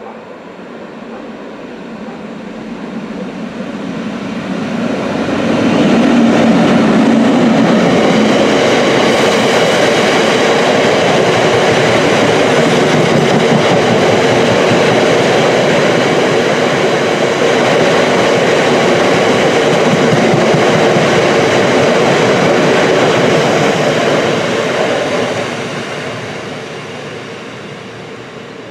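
Class 60 diesel locomotive and its long train of box wagons passing. The sound builds as the locomotive comes by, then holds as a steady, loud rumble and clatter of wagon wheels on the rails for about twenty seconds, fading over the last few seconds as the train draws away.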